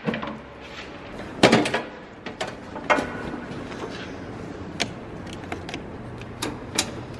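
Metal clanking and rattling as a perforated aluminium battery-box step cover on a semi truck is handled and lifted off, loudest about a second and a half in, followed by a few sharp clicks. About six seconds in a low steady hum starts as a Schumacher battery charger is switched on.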